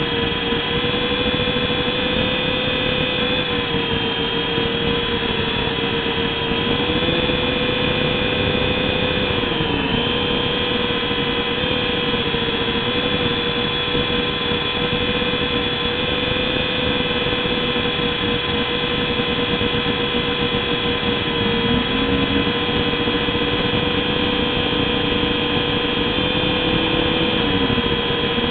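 Small RC helicopter in flight: a steady high-pitched whine from its motor and rotor, dipping slightly in pitch a few times.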